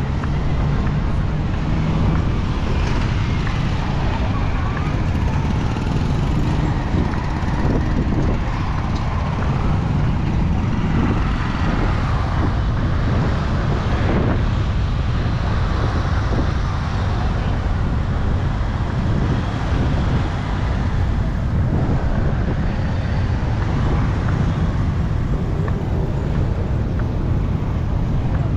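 Street ambience: steady road traffic noise from passing vehicles, with faint voices in the background.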